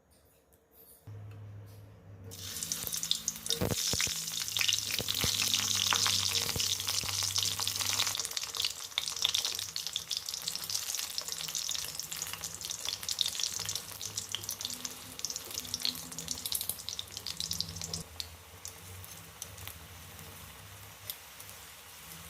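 Food sizzling and crackling in hot oil in a pan, starting suddenly about two seconds in, loudest for the next several seconds, then settling to a quieter, steadier sizzle. A low steady hum runs underneath from about a second in.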